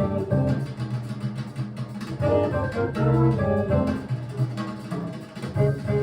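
A recorded hard-bop jazz track playing: double bass lines under a small group, with the drums played with brushes.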